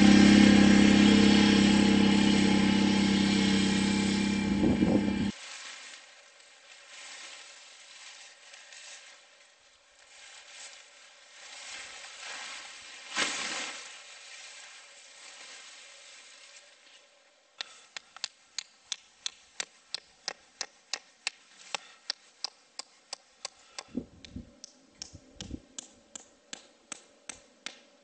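ATV engine running steadily as the quad drives off along a dirt trail, cut off suddenly about five seconds in. What follows is much quieter: faint handling sounds with one sharp knock a little before halfway, then from about two-thirds in a long run of sharp, evenly spaced taps, about two a second.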